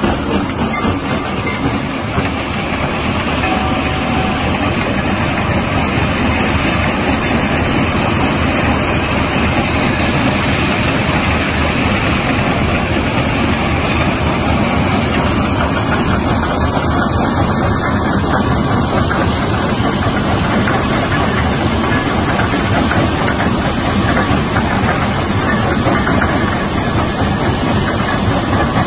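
100 TPH jaw crusher plant running: the jaw crusher breaking stone fed in from loaded conveyor belts, a loud, steady mechanical noise with no let-up.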